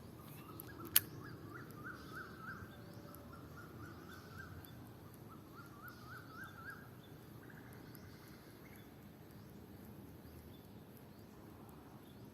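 Faint outdoor ambience with a bird calling in quick runs of short rising chirps for most of the first seven seconds, then a brief higher held note. One sharp click sounds about a second in.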